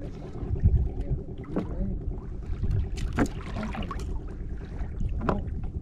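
Fishing boat's engine running steadily under wind on the microphone, with a few sharp knocks as a handline is hauled in by hand over the wooden gunwale.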